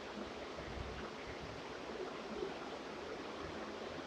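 Steady faint hiss of background noise, room tone with no distinct events.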